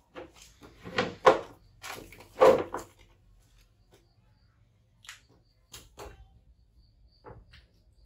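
Handling noises on a tiled floor: two loud knocks, about a second in and again about two and a half seconds in, then a few light clicks and rustles as a disposable diaper is fastened on a baby macaque.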